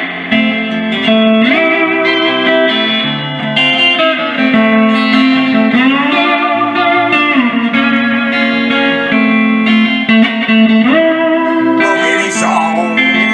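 Band music in an instrumental break between verses, led by guitar playing sustained notes that slide up and down in pitch.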